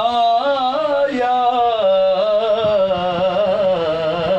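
A man singing a naat in Urdu, drawing one syllable out into a long ornamented line whose pitch wavers and bends without a break.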